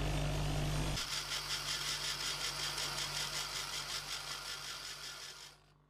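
Bench grinder running, with a steel nut on a hex-head screw ground against its wheel to a slight cone: a steady motor hum under a gritty grinding hiss that pulses in a fine rhythm. The sound fades a little and cuts off shortly before the end.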